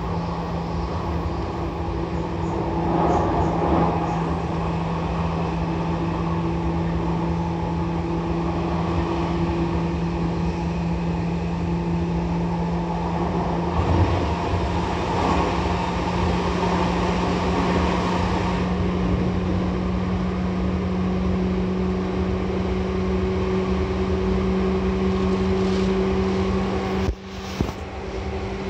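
Running sound inside a Seibu 2000 series electric train car, over the line breaker: a steady motor hum over rail and wheel noise, its pitch stepping up about halfway through. Near the end the sound cuts out for an instant, followed by a sharp clunk.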